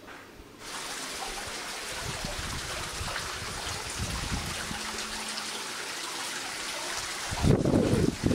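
Wind outdoors: a steady rushing hiss, with gusts buffeting the microphone and the strongest gust about seven seconds in.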